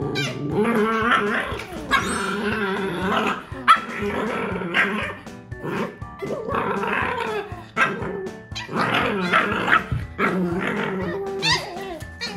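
Shiba Inu puppy growling and giving short barks at an older dog, a mock threat copied from the older dog's growl, over background music.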